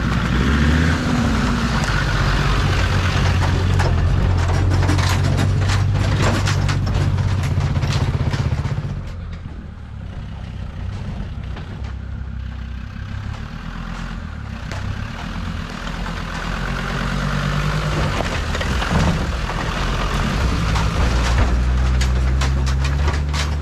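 Land Rover Series 1 with a swapped-in Td5 five-cylinder turbodiesel, driving over rough off-road ground with a low engine note and many short clicks. The sound falls away about nine seconds in and grows louder again as the vehicle comes close near the end.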